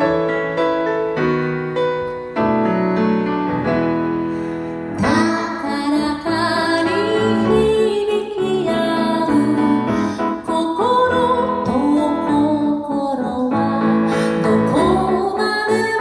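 Piano playing alone, then a woman's singing voice comes in about five seconds in, with the piano accompanying her.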